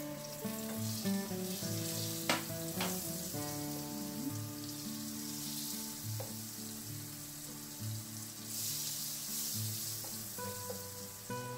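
Butter sizzling as it melts in a hot nonstick pan, pushed around by a wooden spatula, with two sharp taps between two and three seconds in. Soft instrumental background music plays underneath.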